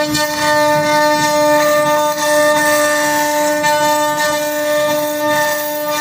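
CNC router spindle running with a steady high whine while cutting wood.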